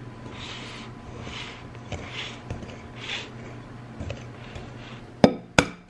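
Wire whisk stirring flour and dry ingredients in a glass bowl, a soft swishing that comes about once a second. Near the end there are two sharp knocks.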